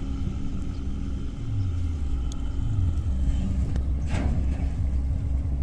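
Tanker ship's diesel engine running: a steady low rumble with a low hum.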